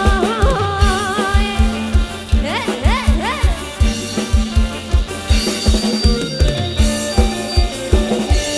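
Dance music blasting from a Thai rot hae, a truck-mounted mobile sound system: a heavy, steady kick-drum beat under a sliding, bending melody line.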